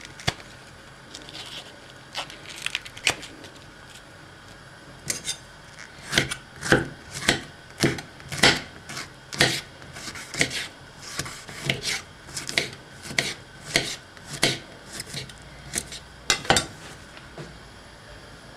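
Kitchen knife chopping artichoke against a cutting board: sharp knocks, about two a second, starting about five seconds in and stopping shortly before the end.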